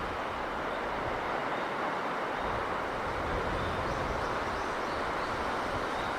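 Steady rushing sound of the sea and sea breeze, with a low rumble that swells a little over two seconds in.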